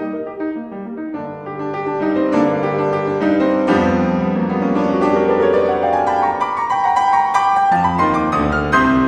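Petrof grand piano played solo in a classical piece, growing louder about two seconds in. A deep bass note enters about halfway through, under a run of notes climbing higher.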